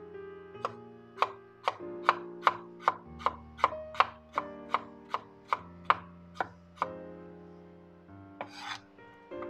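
Kitchen knife slicing fresh ginger on a wooden cutting board: about sixteen crisp strikes of the blade through the root onto the board, roughly two and a half a second, stopping about seven seconds in. A brief scrape follows near the end.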